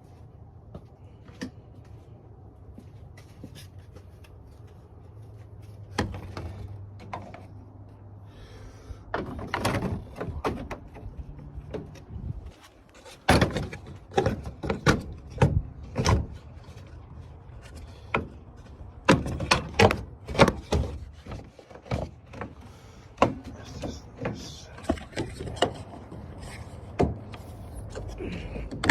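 Irregular knocks, clunks and rattles of parts and tools being handled, with a low hum under the first half.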